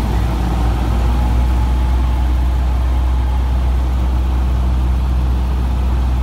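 Cessna 150's four-cylinder Continental O-200 engine and propeller running steadily, heard as a loud low hum inside the cockpit on final approach.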